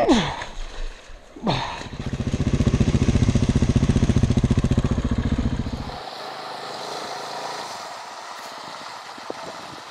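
Two quick falling sweeps, then a KTM 690's single-cylinder engine running close to the microphone with a fast, even pulse for about four seconds, which stops suddenly. After that a steady rushing hiss of river water with a motorcycle engine further off.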